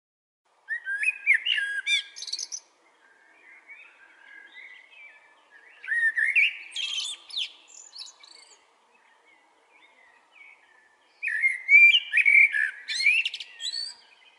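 Male Eurasian blackbird singing three loud warbling phrases, each ending in high squeaky twitters, with softer twittering between them.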